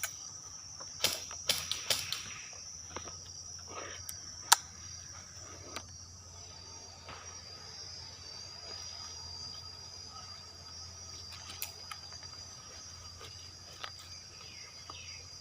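Insects droning steadily at a high pitch, with a few sharp clicks in the first few seconds, the loudest about four and a half seconds in.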